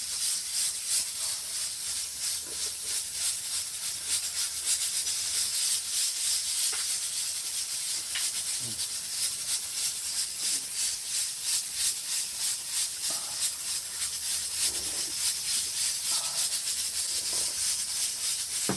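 Two people eating at a table: chopsticks on bowls and plates, and chewing, over a steady hiss with fine crackling.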